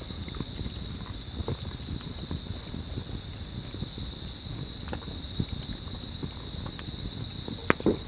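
Night insects singing: high, ringing trilled notes repeating about every second or so, which the caption takes to be suzumushi (bell crickets), over a steady higher insect hum. Light crackling of a campfire underneath, with one sharp click near the end.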